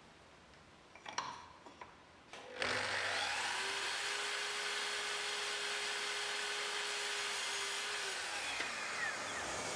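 A couple of light knocks as a small piece of wood is set against the saw's fence. About two and a half seconds in, a sliding mitre saw starts and runs steadily as its blade is lowered through the wood.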